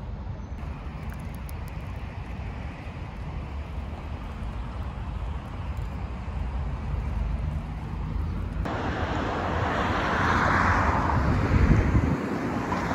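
Low steady rumble of a pram's wheels rolling along an asphalt path. About two thirds of the way in it cuts abruptly to a louder, even rush of wind.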